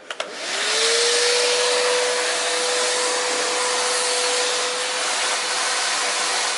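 Eureka Forbes canister vacuum cleaner switched on with a click of its foot button, its motor whining up to speed within about a second. It then runs steadily with a rushing of air.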